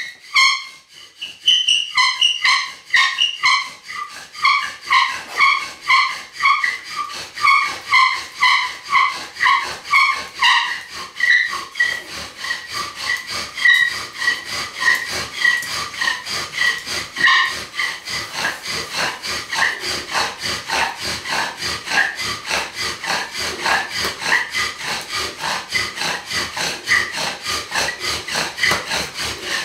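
Bow drill being worked, with the top of its wooden spindle held in a fidget spinner: a wooden bow strokes back and forth, about two strokes a second, spinning the spindle in a wooden hearth board. At first each stroke squeals high; the squeal gives way to a dry rasping of wood on wood as the strokes quicken.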